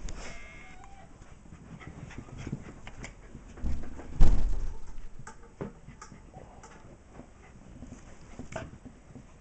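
Dogs moving and playing on a rug: a brief whimper at the start, then scuffling with scattered clicks and rustles, and two heavy thumps about four seconds in.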